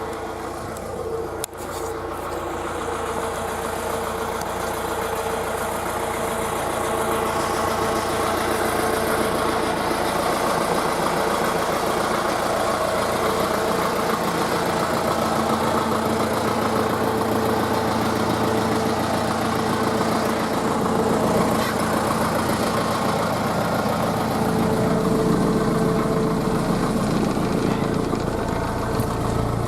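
Tractor engine running steadily, growing a little louder over the first several seconds.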